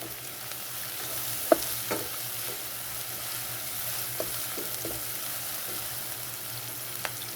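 Onions sizzling in a little oil in a frying pan as they are stirred, with a few short knocks of the stirring utensil against the pan.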